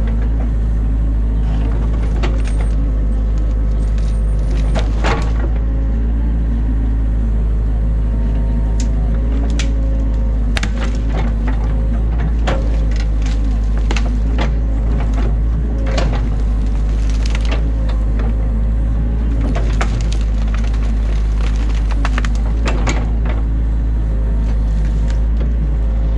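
Excavator's diesel engine running steadily under load, with frequent sharp cracks and knocks of sticks and branches snapping as the bucket breaks apart a beaver dam.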